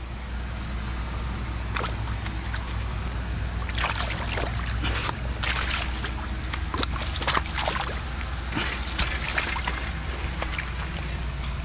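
A hooked carp splashing and thrashing in shallow water at the bank as it is landed by hand, irregular splashes coming thickest from about four seconds in until near the end, over a steady low rumble.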